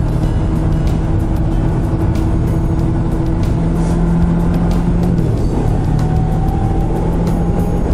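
Suzuki GSX250R's parallel-twin engine running at a steady cruise under a rush of wind noise. Its note changes about five seconds in.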